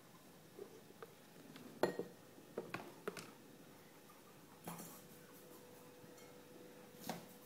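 Scattered light knocks and clinks, a cluster about two to three seconds in and single ones near five and seven seconds, from the hard plastic and metal fittings of a guinea pig cage being bumped. A faint steady hum sits underneath.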